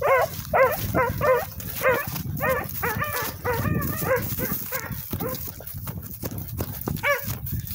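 Rabbit hounds baying while running a rabbit's track: a quick run of short bawls, each rising and falling in pitch, about two or three a second. They thin out after about four seconds, with one more near the end.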